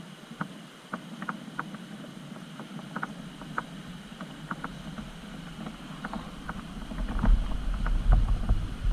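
Irregular light clicks and knocks, several a second, over a steady noise bed. A low rumble of wind on the microphone rises about seven seconds in.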